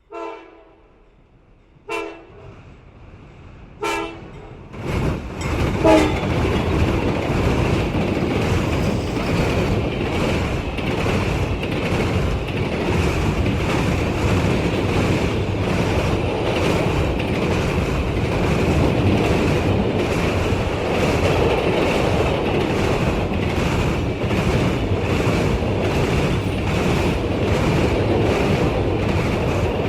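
Train horn sounding three short blasts about two seconds apart. Then the train passes close by: a loud, steady rumble with a rhythmic clickety-clack of wheels over rail joints and a steady high ring that lasts to the end.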